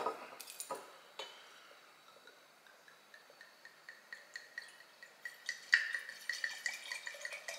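Red wine poured from a bottle into a stemmed wine glass: a faint trickle and splash that gets louder past the middle. A few soft knocks near the start as the bottle and glass are handled.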